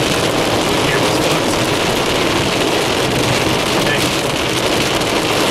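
Rain beating steadily on a car's windshield and roof, heard from inside the moving car, with tyre and wind noise underneath.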